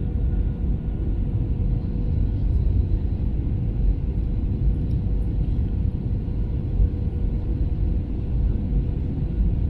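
Steady low rumble of engine and airflow noise inside an Airbus A320's passenger cabin, with a faint steady whine above it.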